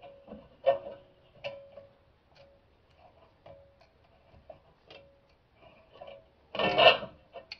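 Irregular metallic clicks and ticks, some ringing briefly, as channel-lock pliers and a C-clamp turn a screw-type rear brake caliper piston back into its bore. A louder, harsher scrape comes near the end.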